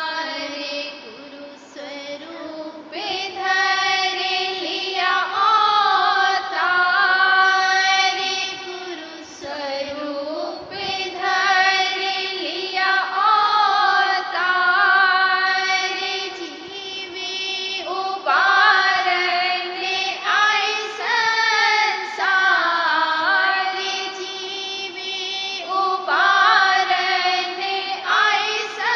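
A devotional Radhasoami shabd (hymn) sung by a female voice, its long held notes gliding between pitches in phrases a few seconds long.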